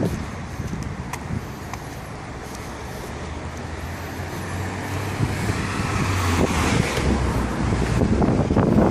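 Motor vehicle engine and tyre noise over a steady traffic rumble, growing louder through the second half as a vehicle draws near.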